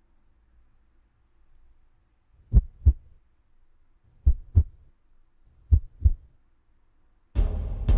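Heartbeat sound effect: three slow double thumps, lub-dub, about a second and a half apart. Near the end a sudden loud low hit comes in and rings on.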